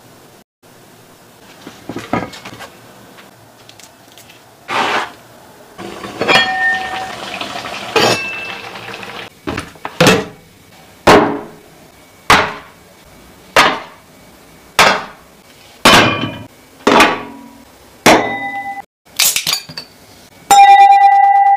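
A run of sharp clinks and knocks of dishes and hard objects, roughly one a second, each with a short ringing tail, followed near the end by a sustained ringing tone.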